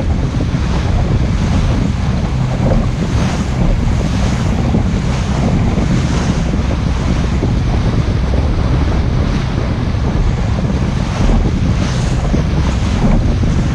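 Heavy wind buffeting the microphone of a small boat under way at speed, over the steady run of its 30 hp outboard motor and the splash of the wake.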